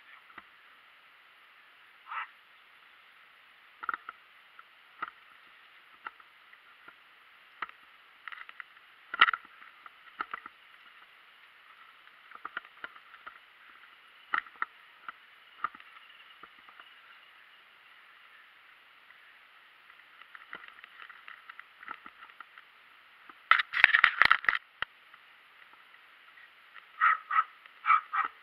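Small dog barking and yapping in scattered short barks, with a quick flurry of barks about 24 seconds in and another run near the end. The barks sound thin and tinny.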